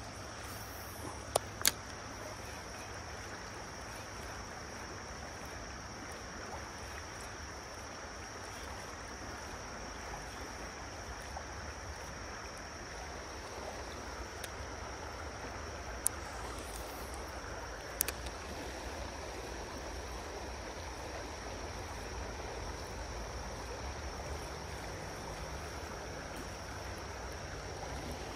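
Lehigh River water flowing in a steady rush, with a few sharp clicks about a second and a half in and again in the second half.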